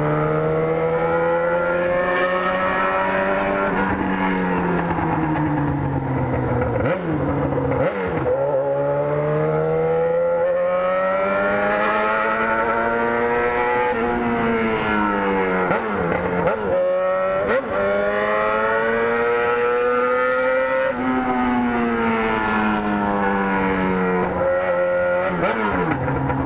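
Yamaha XJ6's inline-four engine running while the bike is ridden, its pitch climbing slowly and falling again several times, with quick sharp dips where the throttle is closed or a gear changes.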